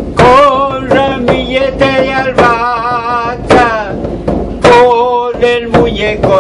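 A man singing a chaya song from La Rioja in long held notes with a wide, wavering vibrato, beating a caja (a leather-headed frame drum) with a stick in a steady beat.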